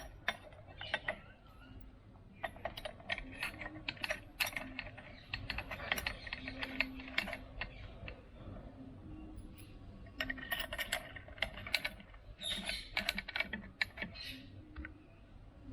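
Metal exhaust hardware being handled by hand: irregular clinks, taps and rattles of the mounting clamp and its fittings, coming in clusters.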